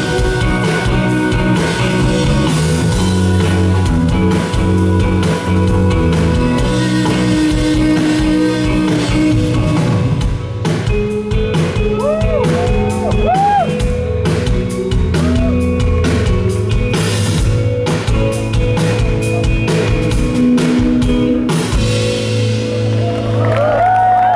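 Live indie rock band playing loudly through a festival PA: electric guitars and a drum kit, with a sung lead vocal at first. Near the end the band settles into a held chord.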